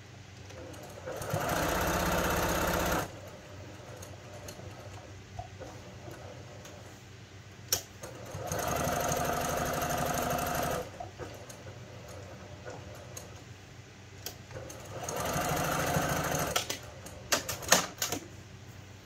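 Brother PQ1500 high-speed straight-stitch sewing machine stitching through thick cloth pad layers in three runs of about two seconds each, with pauses between. A few sharp clicks come between and after the runs.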